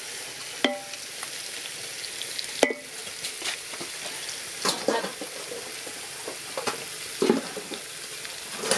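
Chicken and tomatoes sizzling in a metal pot, with a wooden spoon stirring and knocking against the pot about eight times; the loudest knock comes about two and a half seconds in, and a couple of the knocks ring briefly.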